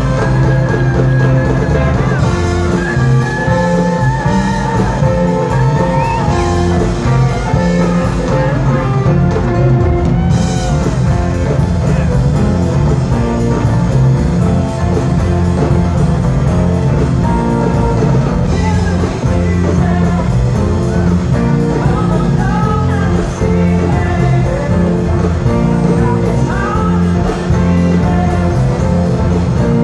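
Live rock band playing loudly, with several electric guitars over a drum kit, the lead guitar bending notes.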